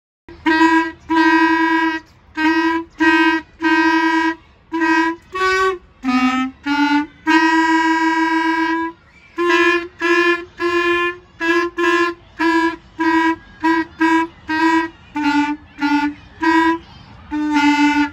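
Two children's plastic clarinets playing a simple melody together, mostly in short separated notes with one longer held note about halfway through.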